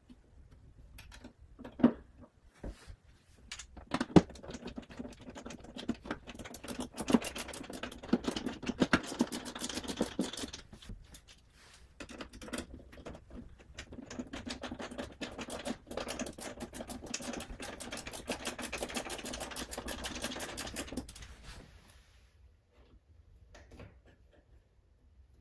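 Hand screwdriver driving screws through a metal ring plate into drywall anchors: rapid clicking and scraping, in two long spells with a short pause between them. A few sharp knocks come in the first few seconds.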